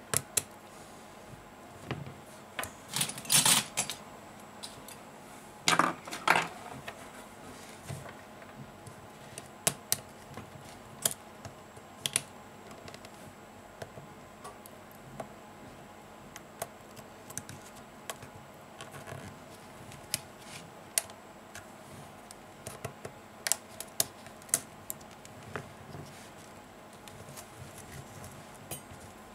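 Small tool and fingertips working inside an opened smartphone: scattered light clicks and taps on its plastic and metal internal parts. Two louder scraping rustles come about three and six seconds in.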